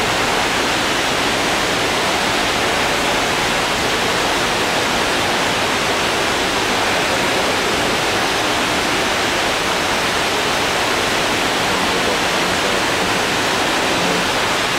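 Steady, even rushing noise that holds at one level, like falling water.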